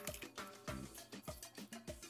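Background music with a steady percussive beat and bass line.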